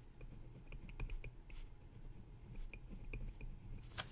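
Pen writing on paper: a scatter of faint, short clicks and taps as the strokes go down, with a sharper tap near the end.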